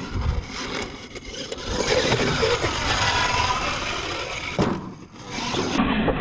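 Radio-controlled monster truck driving and jumping on a dirt track, its motor whining under the noise of tyres on dirt, with a few knocks from landings and ramps. The sound drops away briefly about five seconds in.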